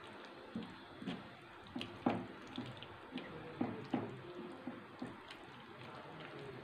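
Spatula stirring chicken curry in thick gravy in a pan: wet squelching with irregular knocks and scrapes of the spatula against the pan, the loudest about two seconds in.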